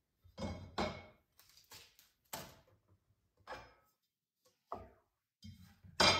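A string of separate knocks and clunks at uneven intervals as hard objects are handled and set down, the loudest near the end.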